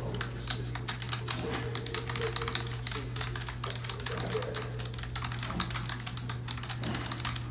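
Rapid, continuous typing on a computer keyboard, with clicks that follow each other quickly and without a break, over a steady low hum.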